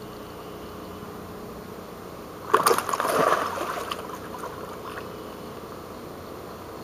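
Water splashing: a hooked gar thrashes at the surface as a landing net is dipped under it. The splashing comes in one loud, ragged burst about two and a half seconds in, lasts about a second, then dies away.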